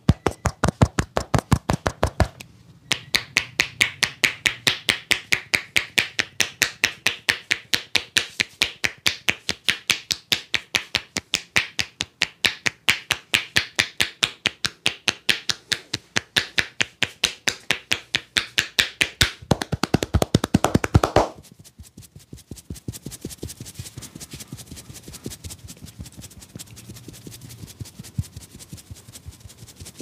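A barber's hands rapidly striking a man's head in a head-massage tapping routine, a steady rhythm of about four slaps a second. The slapping stops about 21 seconds in, giving way to much quieter, irregular rustling as fingers work through the hair.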